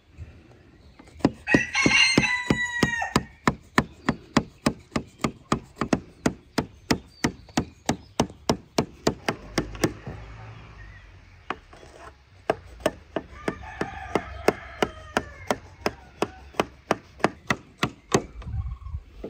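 A serrated knife cutting a sponge cake in a metal baking tray, its blade clicking sharply against the tray about three times a second. A rooster crows loudly about a second in and again, more faintly, past the middle.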